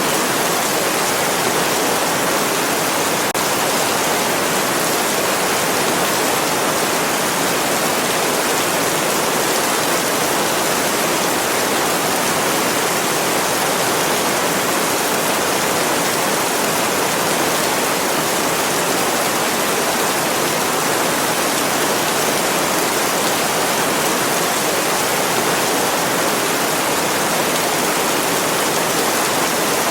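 Steady heavy rain: a dense, even hiss with no single drops standing out and no change in level.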